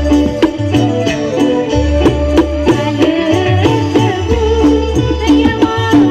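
Lively traditional Sasak music played live by a band: a steady drum beat with deep bass thumps under a wavering melody.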